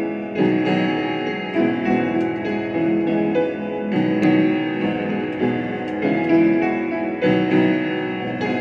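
Keyboard instrument playing slow, held chords, with a new chord struck every second or two.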